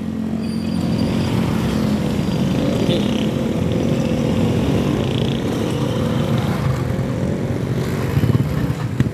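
Motorcycle and motorcycle-sidecar tricycle engines running as they pass close by, with a sharp click near the end.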